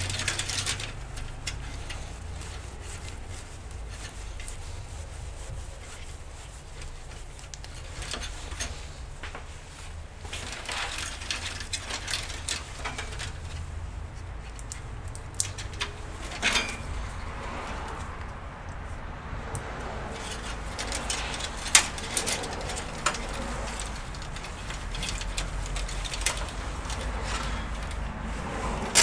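Cables and their plastic connectors being handled and rerouted inside a PC case: scattered rustles, taps and clicks, with a few sharper clicks in the second half, over a steady low hum.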